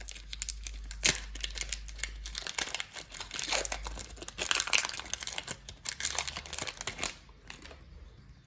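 Foil wrapper of a Pokémon trading-card booster pack crinkling as it is torn open and handled, a dense run of crackles that dies down near the end.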